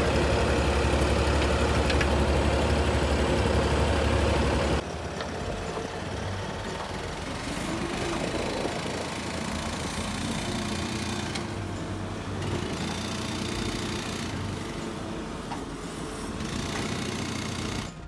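Engine running steadily with a deep hum, which cuts off abruptly about five seconds in; a quieter, rougher engine sound carries on after it.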